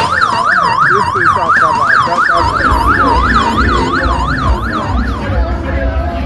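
Electronic siren on a fast yelp, its pitch sweeping up and down about four times a second, fading out about five seconds in, with a low rumble coming in partway through.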